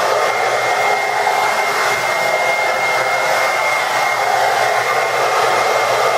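Sweet Life 1875 W ionic blow dryer running steadily, a constant rush of air with a thin, steady high whine over it.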